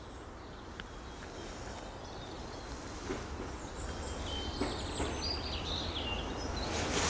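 Quiet outdoor ambience: a steady low rumble, with a few faint bird chirps about four to six seconds in.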